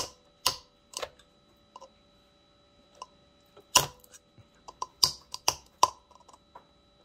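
Sharp, irregular clicks and taps as the piercing pin on the bottom of an egg steamer's plastic measuring cup is pressed against eggshells to poke small holes in them.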